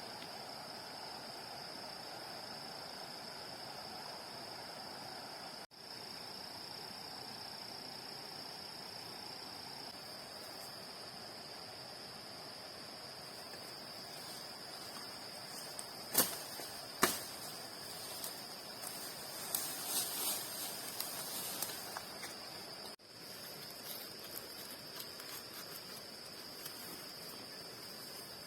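Insects making a steady, high-pitched buzz in the background. About halfway through come two sharp clicks a second apart, followed by a few seconds of scattered crackling and rustling.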